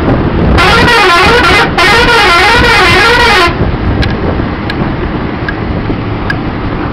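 Bus horn sounding for about three seconds with a warbling, wavering pitch, broken once briefly, over the steady rumble of the moving bus and wind.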